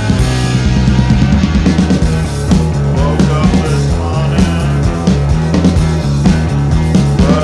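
Early-1980s rock band recording playing, with a drum kit keeping a steady beat under a bass line that steps between notes in a repeating pattern.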